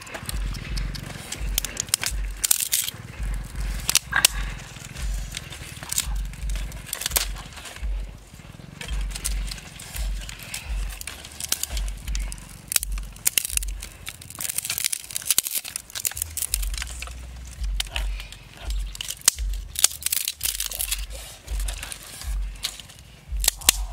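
Dry twigs and sticks snapping, crackling and rustling as they are broken and stacked by hand, with many sharp irregular clicks.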